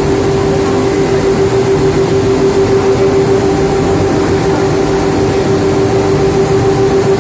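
Fibre carding machines running: a loud, steady mechanical hum with a constant mid-pitched whine over a low rumble, unchanging throughout.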